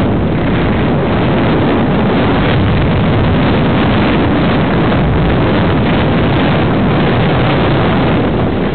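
Loud, steady wind rushing over the microphone, an even roar of noise with no distinct events.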